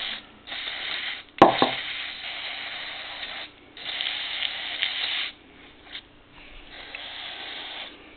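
Aerosol electronics cleaner spraying onto a carburettor in several hissing bursts, about four strong ones and then fainter hiss, with a sharp click about a second and a half in.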